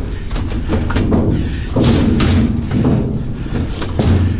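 Heavy metal appliance being manhandled and loaded for scrap: a string of thumps and knocks with scraping in between.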